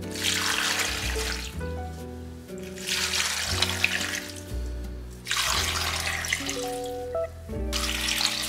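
Water poured from a glass measuring cup into an Instant Pot's stainless steel inner pot over vegetable scraps, in four spells of about two seconds each. Background music plays throughout.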